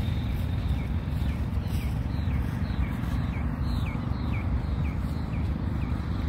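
A bird repeating a short falling chirp about twice a second, over a low steady rumble.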